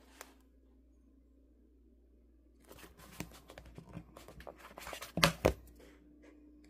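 Paper of a paperback book rustling and crackling as it is handled and opened, starting about two and a half seconds in and ending with two loud sharp snaps a moment apart.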